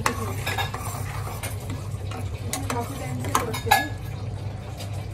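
Metal ladle stirring thick tomato gravy in a stainless steel pot, scraping and clinking irregularly against the pot's sides and bottom, over a steady low hum.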